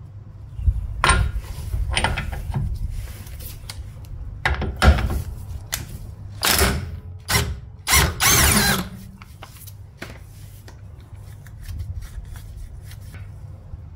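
Impact wrench hammering at the 30 mm rear hub nut in several short bursts to loosen it, the longest and loudest burst about eight seconds in. Light clatter of the socket and nut follows.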